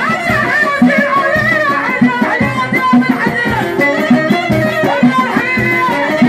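Live amplified Moroccan folk band: a woman singing a wavering melody into a microphone over a steady, regular drumbeat and accompanying instruments.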